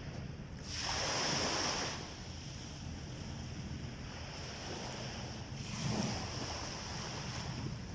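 Sea waves breaking on a beach: a wash of surf swells up about a second in and fades after another second, with a smaller wave breaking around six seconds in, over a steady low rumble of wind on the microphone.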